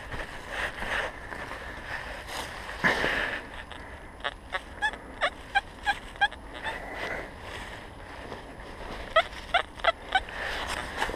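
Metal detector tones, an XP Deus: two runs of short, quick beeps as the coil is passed over the freshly dug hole, signalling metal still in it. The first run comes a few seconds in and the second, with slightly rising beeps, near the end. Before them there is rustling in dry leaves and one sharp scrape.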